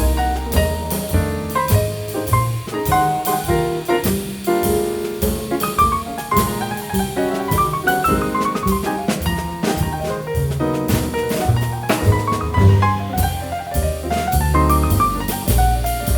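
Background jazz music with piano, saxophone and a drum kit keeping a steady beat.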